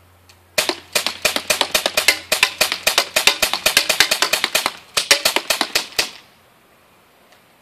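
Umarex Beretta Elite II CO2 BB pistol fired semi-automatically in rapid succession: about two dozen sharp shots, roughly four or five a second, with a brief pause about two-thirds of the way through.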